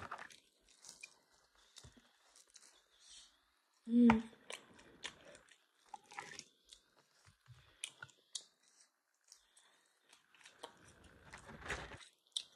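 A person chewing and crunching fried chicken wings close to the microphone, in small scattered crackles and clicks, with a brief low vocal sound about four seconds in.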